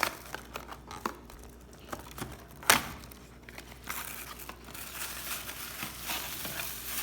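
Packaging being handled and opened: crinkling of plastic or paper wrapping with scattered clicks and tearing, and one sharp loud snap about two and a half seconds in.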